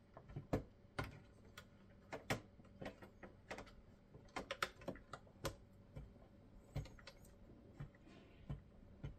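Scattered light clicks and taps, irregularly spaced, of small plastic parts being handled: the DVD drive's cable connectors being unplugged inside an Xbox Series X.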